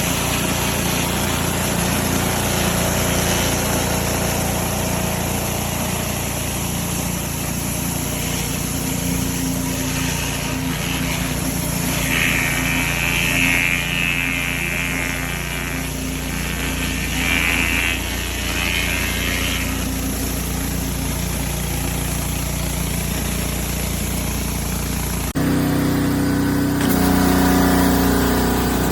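A small gas engine, most likely the pressure washer's, running steadily, with a loud hiss of water spray that swells and falls for several seconds about halfway through. Near the end the engine sound changes abruptly.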